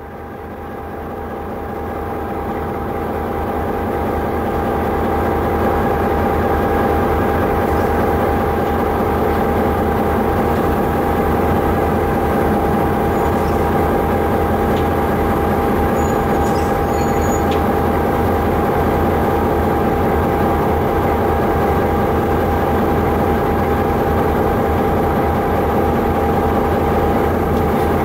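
Diesel engines of Sri Lanka Railways Class M6 locomotives running: the approaching locomotive grows louder over the first five seconds as it closes in slowly, then settles into a steady heavy drone with a steady high hum over it.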